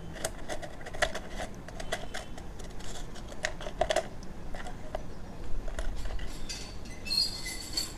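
Metal tweezers clicking and tapping against coins and the side of a cup as coins are picked out of toilet-cleaner liquid: a run of irregular light clicks, with a brief scrape near the end.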